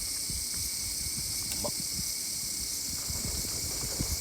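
A steady, high-pitched chorus of night insects such as crickets, with scattered small low knocks and clicks underneath.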